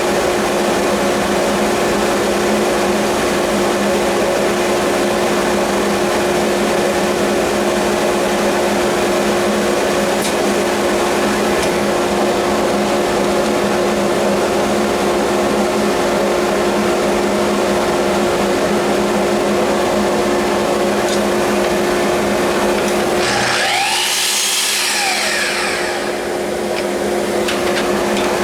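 Electric power tool motor running steadily with a constant hum. Near the end its sound sweeps and dips briefly, then it settles back to the same steady run.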